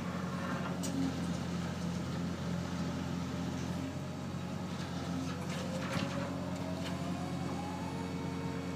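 Hydraulic sheet-pile press rig running steadily as it presses a steel sheet pile down into stiff clay: a low, even engine drone, with a whine that rises slowly from about five seconds in and a few faint clicks.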